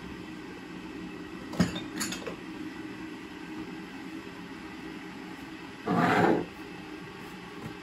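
A ceramic cup knocking twice lightly on a desktop, then sliding across it in a short scrape of about half a second, the loudest sound, near the end.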